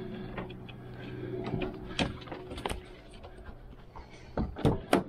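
Sharp knocks and clicks from the van's door and window frame being handled, with a louder cluster of three knocks near the end, over a steady low hum that fades out partway through.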